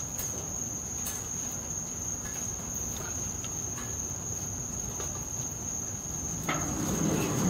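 Crickets singing a steady, high continuous trill. A few faint clicks, then a knock about six and a half seconds in followed by a louder low rumble, from the metal gate being worked by hand.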